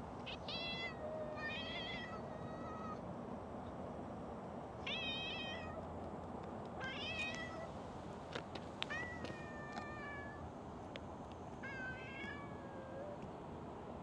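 A cat meowing six times, the calls spaced a second or two apart, one drawn out longer about two-thirds of the way in. A few sharp clicks fall between the meows, over a steady background hiss.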